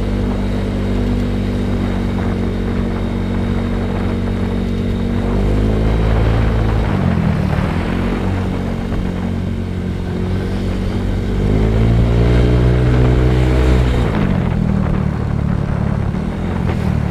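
Motorcycle engine running while riding. It revs up and then drops back twice, about six seconds in and again about twelve seconds in.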